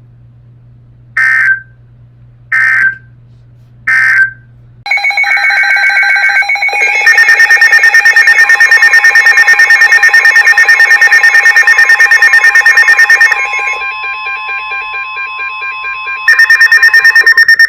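NOAA Weather Radio alert coding: three short bursts of warbling digital header data about a second and a half apart. From about five seconds in come loud electronic alarm tones, with weather-radio receivers' alerts beeping rapidly over a steady alert tone; this signals that a new severe thunderstorm warning is about to be broadcast.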